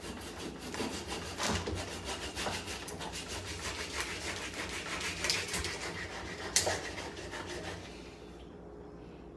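Quick rasping strokes of a knife scraping the scales off a whole tilapia, going on steadily and stopping near the end.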